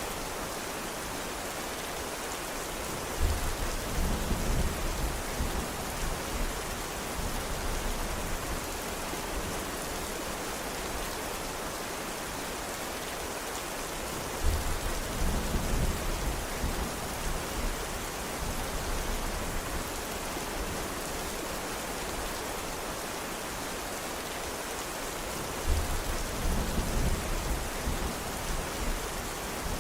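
Steady heavy rain hissing evenly. Three low rumbles of thunder, each starting with a sudden crack and rolling for a few seconds, come about eleven seconds apart.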